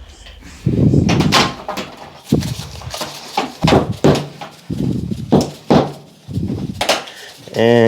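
Irregular scraping and knocking of a tool working freshly mixed cornice cement (hot mud) in a bucket, a stroke every half second or so. Near the end a steady pitched hum starts.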